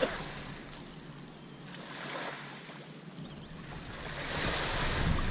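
Small waves lapping and wind blowing across the microphone, a hiss that swells and fades twice, with low wind rumble at the start and again near the end.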